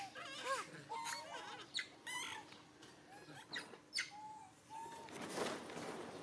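Macaque calls: short pitched cries, each rising and falling, several in quick succession in the first couple of seconds, then a few flatter, evenly pitched calls. About five seconds in there is a brief rustling noise.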